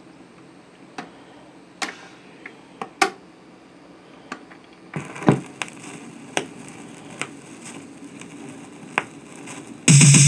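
Sears stereo record changer going through its change cycle: a string of sharp mechanical clicks as the mechanism indexes, a thump about five seconds in as an LP drops from the stack onto the platter, and more clicks as the tonearm moves over. Music starts loudly from the speakers near the end.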